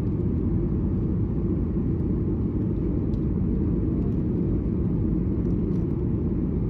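Jet airliner cabin noise: the engines and rushing air make a steady, even rumble, heard from a window seat.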